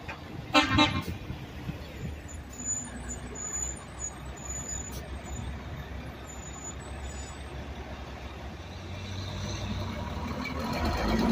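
A short truck horn toot about half a second in, then passing road traffic. The diesel engine and tyres of a tandem-axle dump truck grow steadily louder as it drives up close near the end.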